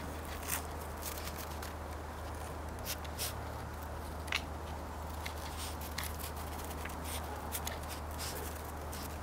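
Scattered light clicks and scuffs from hens moving and pecking about in the snow, the sharpest about half a second in and a little after 4 s, over a steady low hum.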